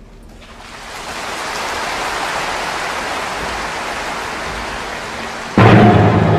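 Audience applauding: it swells over the first second and holds steady. Near the end the orchestra cuts in loudly.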